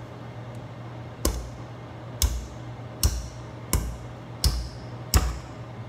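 A small wire whisk knocked six times against the rim of a metal mixing bowl, about once a second, each a sharp clank with a short ring, to shake thick icing off the wires.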